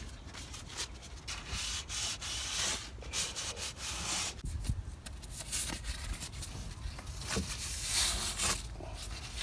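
A spectacle-cleaning wipe soaked in alcohol rubbed over the sanded canoe hull, a papery scrubbing in uneven strokes, cleaning off grease before the adhesive goes on.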